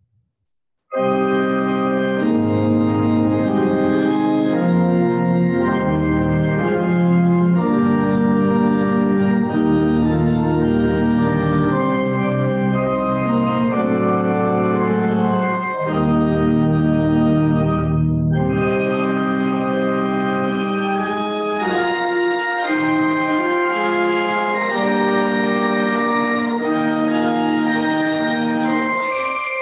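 Church organ playing the postlude that closes the service: sustained chords starting about a second in, with deep pedal bass notes. After about nineteen seconds the low bass drops out and the music goes on lighter and higher.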